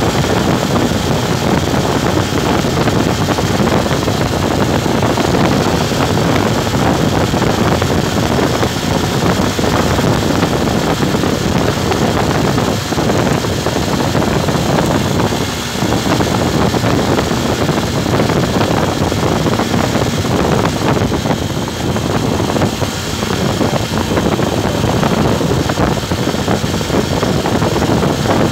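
Wind rushing over the microphone of a moving motorcycle, with engine and road noise beneath, steady and loud throughout, easing briefly about halfway through.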